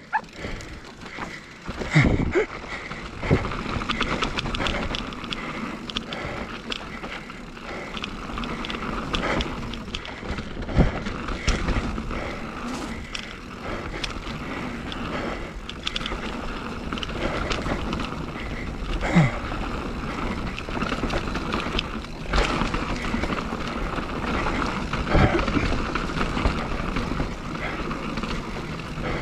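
Mountain bike rolling fast down a dirt trail: continuous tyre and rushing noise with a steady whirr, and frequent rattles and knocks as the bike rides over bumps.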